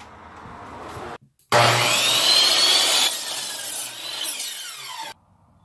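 Metabo HPT compound miter saw cutting through a wooden board: a loud cutting noise over the motor's high whine, which sags under the cut. The whine then winds down in a falling glide as the blade spins down, and the sound stops abruptly about five seconds in.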